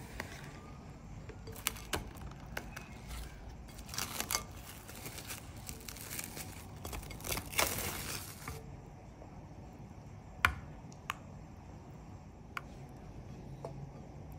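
Plastic cling wrap crinkling and crackling as it is handled over a glass mixing bowl, in bursts through the first eight seconds or so. Then a few sharp separate clicks or taps, the loudest about ten seconds in.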